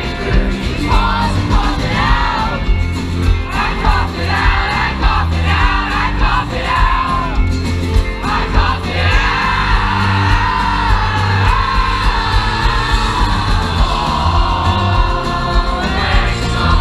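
Rock band playing live and loud, the full band driving under a sung lead vocal that moves in short phrases and then, about nine seconds in, stretches into long held notes.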